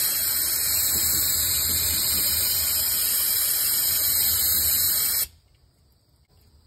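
Aerosol can of brake parts cleaner spraying in one continuous loud hiss onto the engine's timing cover to clean the gasket surface. It cuts off abruptly about five seconds in.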